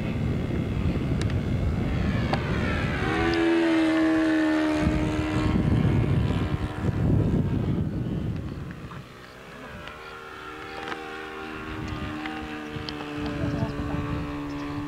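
The engine of an OK Model Super Chipmunk 45 radio-controlled airplane buzzing in flight. Its pitch slides as the plane passes and turns, and it fades about two-thirds of the way through before growing louder again. Wind rumbles on the microphone throughout.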